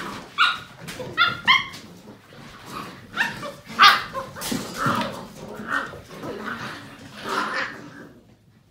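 Seven-week-old Portuguese Water Dog puppies barking and yipping as they play. A quick run of short, high-pitched yips comes about half a second in, then more barks on and off, dying away near the end.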